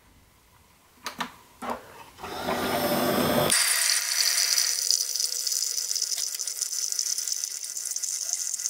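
Keurig single-serve coffee maker brewing a K-cup: a couple of clicks about a second in, then its pump starts, and from about three and a half seconds a steady high hiss and buzz as coffee streams into a plastic blender cup.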